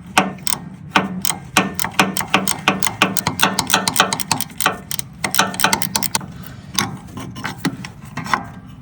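Ratchet wrench clicking in quick repeated strokes, about four clicks a second, as it turns a bolt on a homemade puller to force a stuck clevis pin out of a clutch lever. The clicks thin out near the end.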